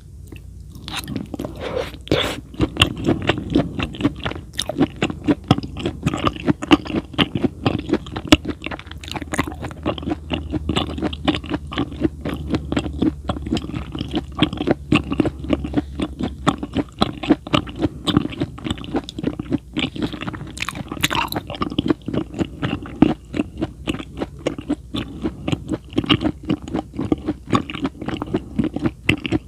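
Close-miked chewing: a person eating, with many fast, irregular crunches and wet mouth clicks that start about a second in and keep on steadily.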